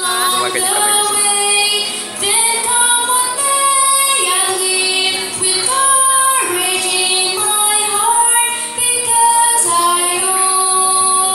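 A girl singing solo into a microphone, holding long notes that slide between pitches.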